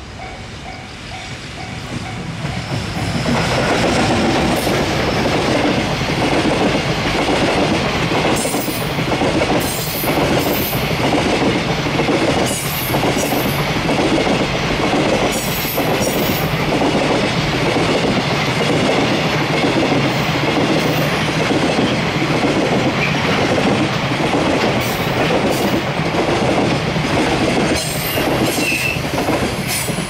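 A Japanese level-crossing warning bell rings in a steady repeating pattern as a JR Freight EF210 electric locomotive and its long container freight train approach. About three seconds in, the train reaches the crossing and runs past at speed. The wagons' wheels make a loud steady rush with a repeated clickety-clack over the rail joints and occasional sharp metallic crackles.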